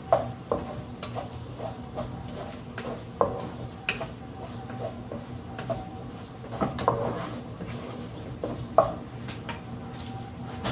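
Wooden spatula stirring and scraping scrambled eggs around a nonstick frying pan, with irregular knocks and taps of the spatula against the pan.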